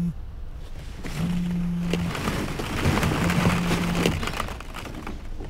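A mobile phone vibrating in regular buzzes, each about a second long and about two seconds apart, over a crackling, rustling noise.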